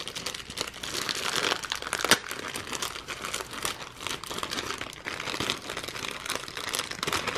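Plastic wrapper of a Happy Meal toy crinkling as it is handled and opened, with a continuous run of small crackles and one sharper crackle about two seconds in.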